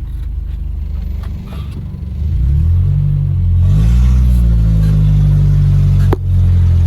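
Freshly rebuilt Toyota 22RE 2.4-litre four-cylinder engine pulling the truck under acceleration during its break-in miles: the engine note rises from about two seconds in, climbs again, then holds high. Near the end there is a sharp click and a brief drop in level before the engine picks back up.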